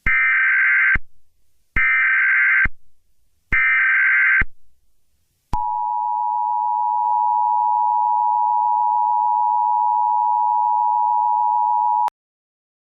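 Emergency Alert System tones: the SAME header sent three times as roughly one-second bursts of data tones, then the steady two-tone EAS attention signal held for about six and a half seconds and cut off abruptly.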